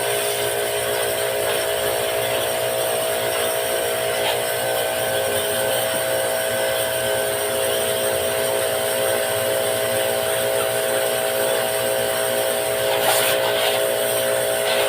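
A small electric motor running with a steady buzzing hum and a constant hiss over it.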